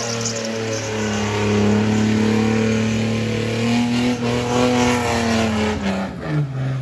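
Car engine held at high revs in a burnout while the rear tyres spin and smoke on the tarmac. The revs drop away just before the end as the throttle is lifted.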